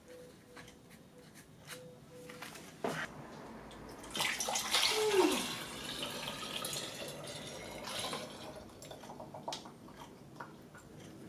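Liquid poured through a funnel into a glass bottle, splashing and trickling, loudest about four to six seconds in and easing off to light drips. Before it, faint scratching of a pen writing on paper.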